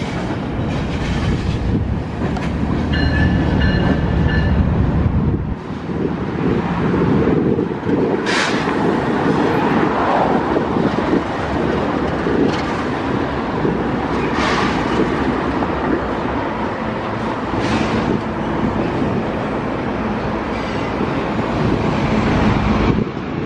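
Canadian Pacific freight train passing close by: two diesel locomotives rumble heavily as they go by, and their engine sound drops away about five seconds in. Then the intermodal container cars roll past with a steady rumble of wheels on rail, broken by a few sharp knocks.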